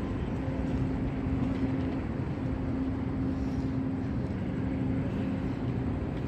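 Steady city street noise: traffic running past under a constant low hum.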